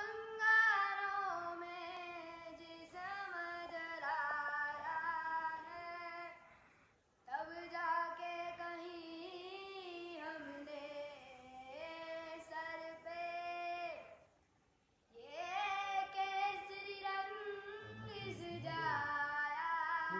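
A child singing unaccompanied in three long phrases of held, sliding notes, with short breaks for breath between them.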